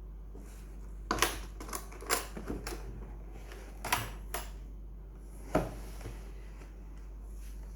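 Sharp, scattered clicks and clacks from the newly fitted metal toggle latch on a tool case being handled and worked: a cluster about a second in, a couple near the middle and one more a little later.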